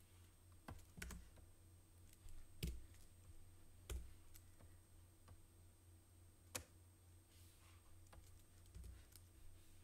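Faint, irregular clicks of computer keys, about half a dozen spread over several seconds, over a low steady hum.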